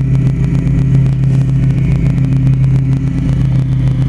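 An engine idling steadily, a loud low hum with rapid, even pulses and no change in speed.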